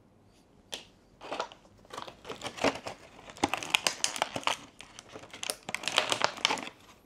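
Action-figure packaging crinkling and rustling in irregular bursts as small accessories are taken out of it, starting about a second in.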